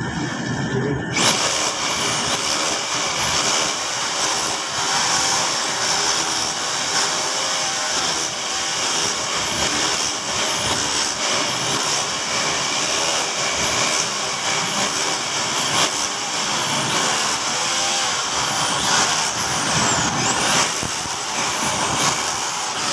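A power tool running continuously, starting abruptly about a second in.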